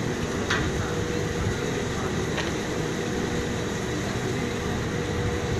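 Steady mechanical hum of an engine running, with two faint clicks about half a second and two and a half seconds in.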